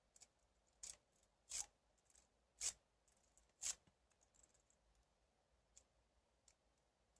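Lock pick scraping and clicking against the pins inside a Medeco Biaxial six-pin lock: a few short scratchy strokes over the first four seconds, the loudest about a second apart, then only faint ticks.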